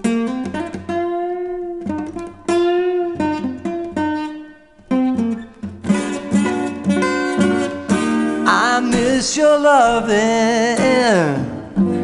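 Background music: a slow song with plucked acoustic guitar, the notes growing denser in the second half, where a wavering, gliding melodic line rises over them.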